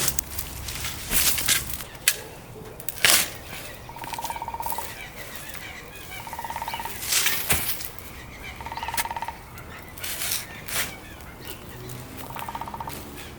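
A bird repeating a short, rapid trill four times, roughly every two and a half seconds, among outdoor ambience. Several short, sharp rustling or scraping noises fall in between, the loudest about three and seven seconds in.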